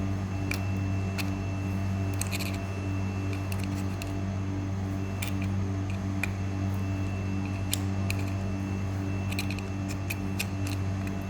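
Scattered small metallic clicks and taps from hand tools working on a car door lock cylinder during disassembly, coming singly and in small clusters, over a steady low hum.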